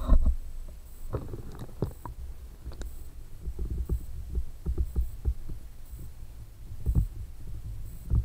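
Muffled, irregular low thumps and knocks from an action camera in a waterproof housing moving about underwater in a 50-gallon plastic water drum. There is a louder burst just at the start as it goes under, and a heavier thud about 7 s in.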